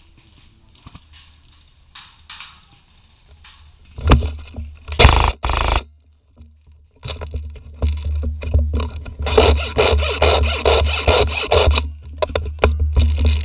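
Loud scraping and rubbing noise with a heavy low rumble, close to the microphone. It comes in two short stretches about four and five seconds in, then runs on from about seven seconds.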